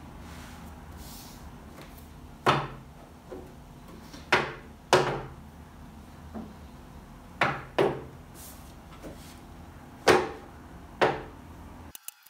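Stiff cardboard notebook covers knocked and set down on a wooden desk while being sorted: seven sharp knocks at uneven intervals, some in quick pairs.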